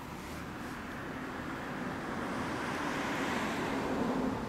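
A motor vehicle running: a steady rushing noise that swells louder over a couple of seconds and drops away near the end.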